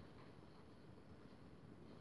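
Near silence: faint, steady room tone and hiss.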